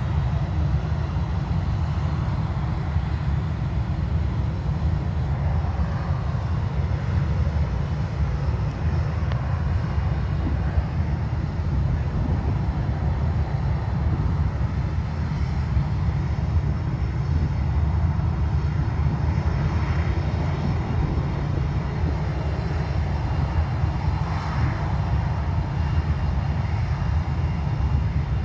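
Jet engines of a Ryanair Boeing 737 at low taxi power, a steady low rumble with a faint whine above it that swells and fades a little.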